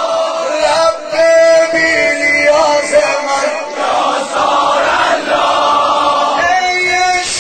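Male voices chanting a Shia devotional lament (noha) as a chorus, on long held notes.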